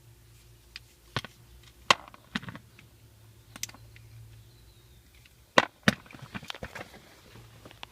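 Irregular sharp clicks and knocks of hard objects being handled, the two loudest about two seconds and five and a half seconds in, followed by a run of small ticks, over a faint low hum.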